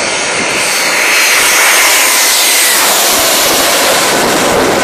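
Twin-engine jet airliner passing low overhead on landing approach: a loud rush of jet engine noise that swells about a second in, with a high whine that drops in pitch as the aircraft goes by.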